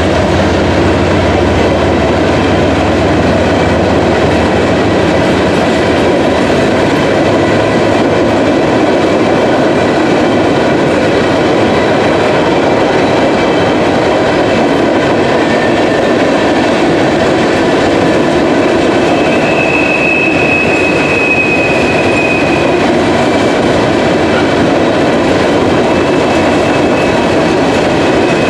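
Loaded CSX stone hopper cars of a freight train rolling past at steady speed: a continuous loud rumble and clatter of steel wheels on rail. A thin high squeal rises out of it for a few seconds about twenty seconds in.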